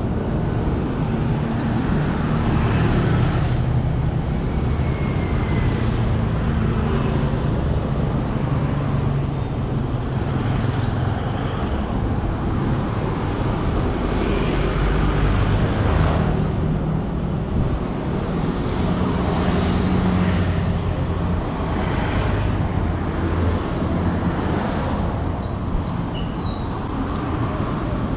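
City road traffic: a continuous stream of vehicles passing, with engine and tyre noise that swells and fades as each goes by.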